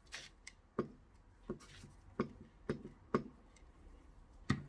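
A handful of separate sharp taps and clicks, about six, spaced unevenly: hands working paper and glue on a table while a paper triangle is glued into a folded piece of paper.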